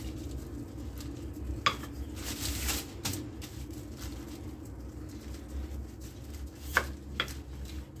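Rolling pin rolling out dough on plastic wrap over a stone countertop: a steady low rumble with a few sharp knocks and taps, the loudest about two seconds in and another near seven seconds.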